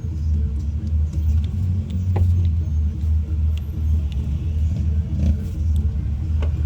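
Steady low rumble of a car's engine and road noise.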